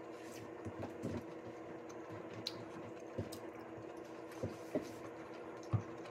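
A few light clicks and taps of a metal fork against a glass plate during eating, scattered irregularly, over a steady faint hum.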